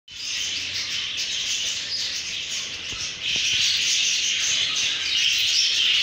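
Budgerigars chirping and chattering in a dense, continuous wash of calls, louder from about three seconds in.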